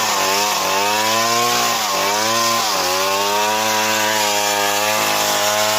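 Stihl MS 070 two-stroke chainsaw cutting wood under load. Its engine pitch sags and recovers several times in the first half, then holds steadier.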